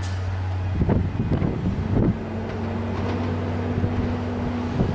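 Comeng electric suburban train running through the station at speed as it approaches. There is a steady low hum, a steady motor whine from about two seconds in, and rough thuds from the wheels a few times.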